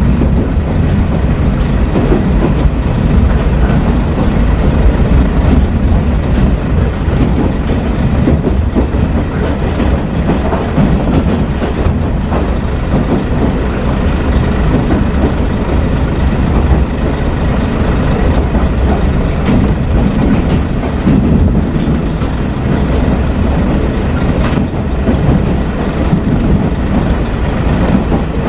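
Kashima Rinkai Railway 6000 series diesel railcar heard from inside the passenger cabin: steady diesel engine and wheel-on-rail running noise.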